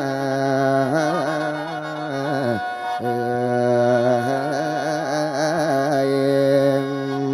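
A mor lam singer's long, drawn-out vocalise in lam long style, sustaining notes with wavering melismatic ornaments. There are two long phrases: the first falls away about two and a half seconds in, and the second starts half a second later.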